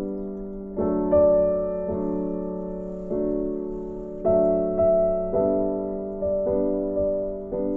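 Background music: slow, soft piano, with chords struck about every half second to a second and left to fade.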